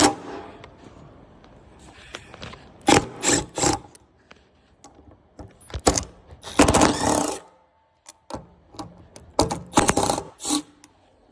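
Clicks, knocks and scraping of hand tools on metal and plastic parts as a new Prius inverter water pump is taken off its mounting bracket, with a longer scraping stretch about halfway through.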